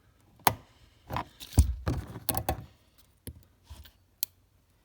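Flathead screwdriver prying plastic push-pin trim clips out of a car's trunk liner: a string of sharp clicks, knocks and scraping, loudest about a second and a half in with a dull thump, then a few lighter clicks.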